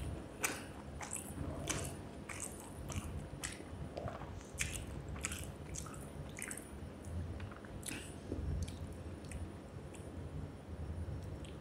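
A person chewing and biting a mouthful of rice with fish curry and brinjal fry, close to the microphone: a steady run of short, sharp mouth clicks and smacks, roughly one or two a second.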